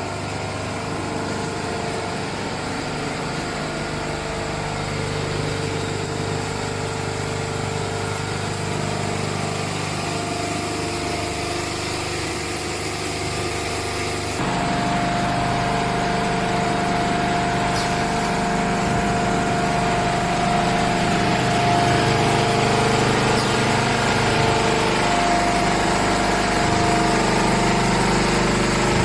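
Automated quilt quilting and cutting line running: a steady mechanical hum with a held motor whine. The sound changes abruptly about halfway through and is a little louder afterwards.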